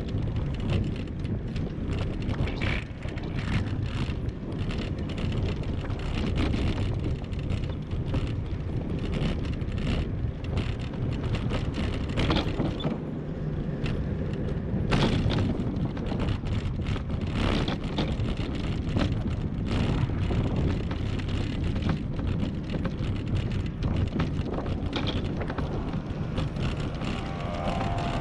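Riding noise of a bicycle, picked up by a camera on the bike: a steady rumble of wind and tyres, broken by frequent small knocks and rattles as it rolls over brick-paved paths and asphalt.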